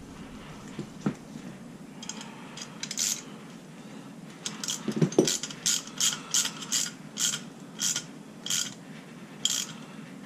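Ratchet wrench clicking in short, regular strokes, about two a second through the second half, as it turns a pair of locked M8 nuts to drive a cylinder stud into an 80cc bicycle engine case until snug. A dull knock about five seconds in.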